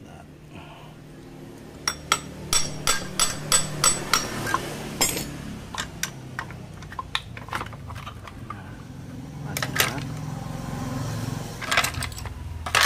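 Metal parts of a motorcycle engine clinking and tapping while the clutch assembly is worked off the crankcase and handled. A run of sharp taps about three a second comes about two seconds in, followed by scattered clinks and scrapes.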